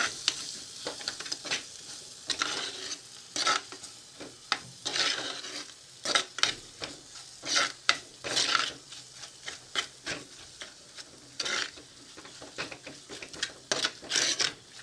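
Spatula stirring and scraping onion-tomato masala with ground spices around a hot pan, in irregular strokes about once a second, over a faint sizzle of the frying masala.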